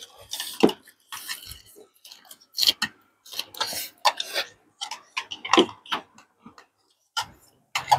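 Spoons and chopsticks clicking and tapping against ceramic bowls, mixed with slurping and chewing as several people eat soup and fish.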